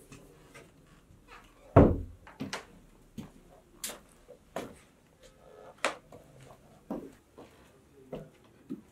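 Irregular footsteps and knocks in a small room: sneakers on a hard floor and a wooden stool being bumped, with one heavy thump about two seconds in.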